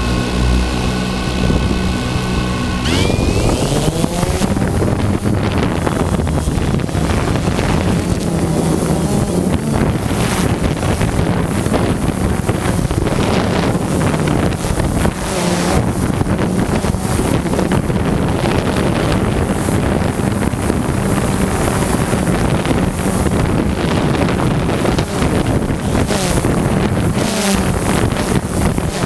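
Wind buffeting the microphone over a steady low hum, with scattered brief knocks.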